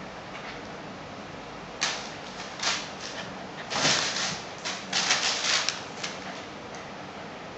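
A Shiba Inu and a Japanese Spitz wrestling: a run of short scuffles and clacks from about two seconds in to about six seconds in, with the loudest bunched in the middle.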